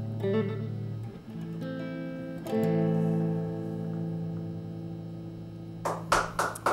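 Electric guitar through an amplifier plays the closing notes of a song, and a final chord is struck about two and a half seconds in and left ringing as it slowly fades. Near the end a few people start clapping.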